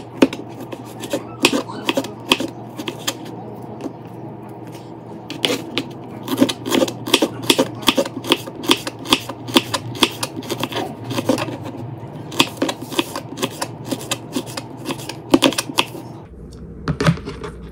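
Chef's knife cutting ginger slices into strips on a plastic cutting board: quick knife taps on the board, about three a second, with a short pause about four seconds in, stopping shortly before the end.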